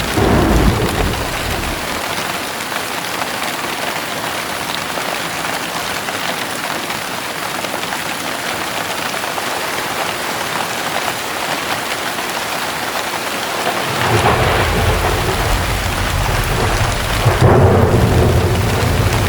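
Heavy rain pouring steadily, with a short clap of thunder right at the start and a long, deep rumble of thunder rolling in about 14 seconds in and swelling again near the end.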